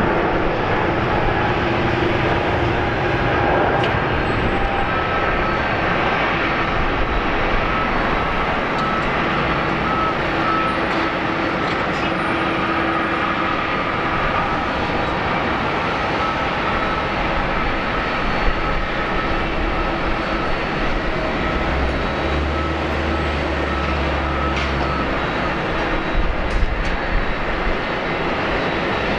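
Boeing 777-200ER jet engines running at takeoff thrust: a steady, continuous roar as the airliner rolls, lifts off and climbs away. A deeper rumble comes in for a few seconds late on.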